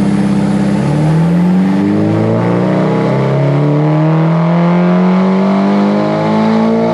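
Turbocharged SR20DET four-cylinder engine in a 240SX S14 making a full-throttle dyno pull, its pitch climbing steadily through the rev range for about six seconds.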